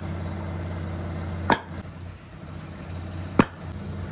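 Hollow concrete blocks knocking sharply against concrete as they are set down and stacked, three knocks about two seconds apart. Under them runs a steady low machine hum.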